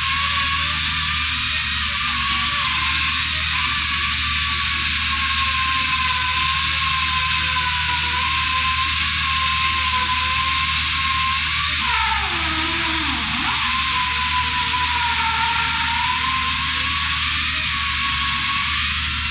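Pneumatic chainsaw running steadily as it cuts, a loud hiss with a high whine that sags in pitch for about a second around twelve seconds in, as the saw is loaded.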